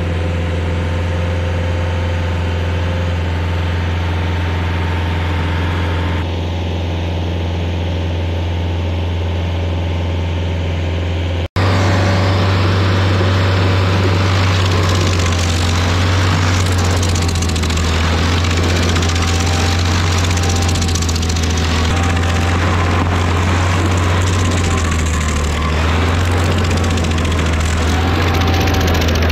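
Rayco RG50 stump grinder's engine running steadily at a constant speed. About eleven seconds in, the cutter wheel grinds into the stump, adding a harsh, rough noise of wood being chewed into chips over the engine drone.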